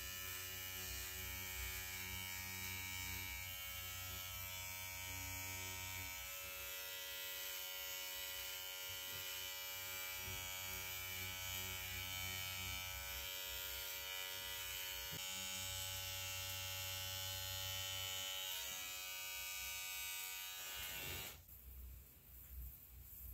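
Electric hair clipper running with a steady buzz as it shaves the side of the head short, then switched off near the end.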